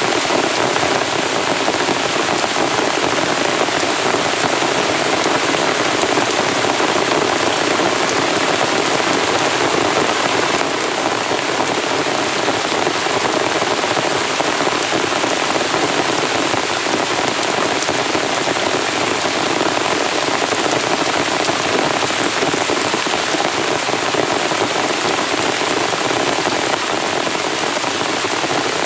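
Heavy rain falling steadily, a dense unbroken hiss of drops with no thunder.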